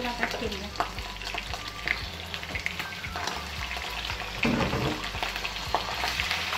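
Sliced offal (kidneys, heart) frying in hot oil with sliced garlic in a non-stick frying pan: a steady sizzle with many small crackling pops, just after the meat went in. There is a brief louder burst about four and a half seconds in, and near the end a wooden spoon stirs the pieces in the pan.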